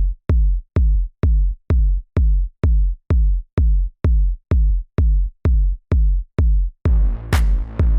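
Electronic dance music: a lone four-on-the-floor kick drum thumping about twice a second, then about seven seconds in the full mix drops in with bass, sustained chords and a sharp clap-like hit.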